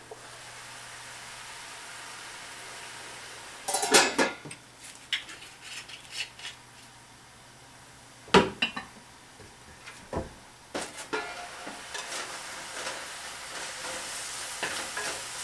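Spinach and mushrooms frying in a lidded frying pan: a steady low sizzle, broken by a few sharp clatters of cookware about four, eight and ten seconds in. Near the end the lid is lifted and a wooden spatula stirs the greens, and the sizzle grows louder.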